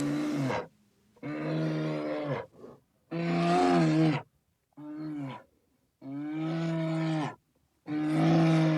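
An animal calling six times in a row: low, drawn-out voiced calls, each about a second long and dropping in pitch at the end, with short silent gaps between them.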